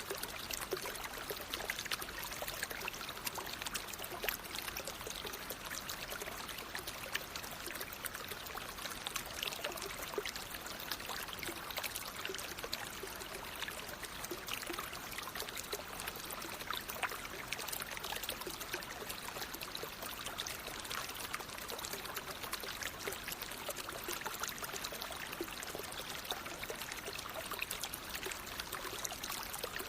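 Natural flowing water, a steady rush with fine trickling and splashing detail.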